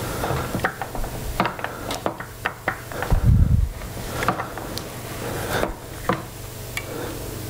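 Handling sounds of a 3D-printed plastic dial-indicator holder being repositioned and clamped on a Porsche G50 gearbox: a run of irregular clicks, knocks and rubbing, with a heavier dull thump about three seconds in, over a steady low hum.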